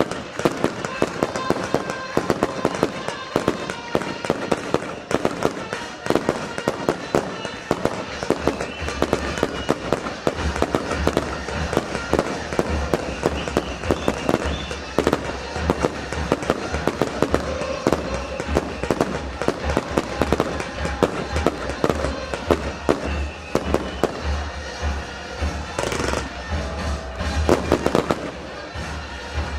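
A 100-shot fan-pattern fireworks cake firing its mortar shells in rapid succession: a continuous run of sharp pops and bangs, several a second, with a few louder bursts near the end.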